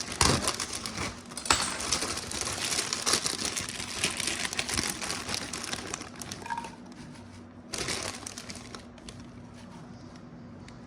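Crinkling and rustling while salad ingredients are handled for plating, with a sharp knock near the start and another about a second and a half in. It grows quieter after about six seconds, with one short rustle near eight seconds.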